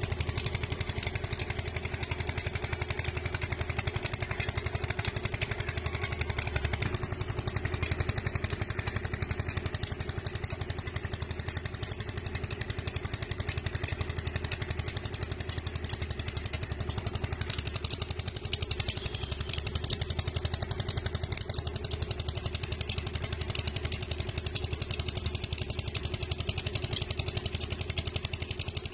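Farm tractor's diesel engine running steadily under load while hauling a trolley heaped with soil, with a fast, even engine pulse.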